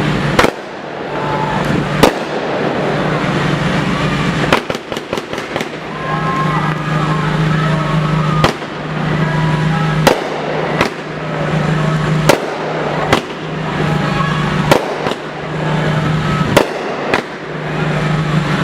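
Consumer fireworks going off in the street: loud single bangs roughly every second, with a quick string of firecracker cracks about five seconds in, over the noise of a crowd.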